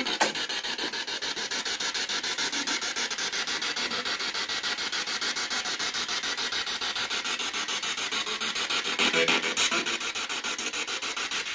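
Spirit box radio sweeping through the stations, playing static through its speaker chopped into rapid even pulses, about ten a second. A louder stretch comes about nine seconds in.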